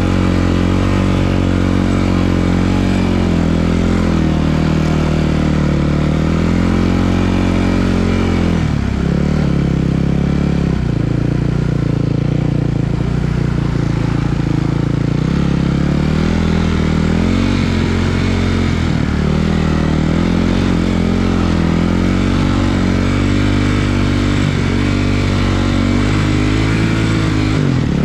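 Snowbike (dirt-bike) engine running continuously under load, its pitch falling and rising as the throttle is eased off and opened again.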